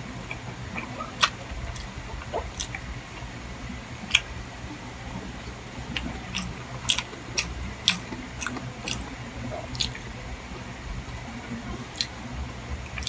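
Close-miked eating of chicken liver and gizzard adobo: chewing with wet mouth smacks and irregular sharp clicks, over a steady low hum.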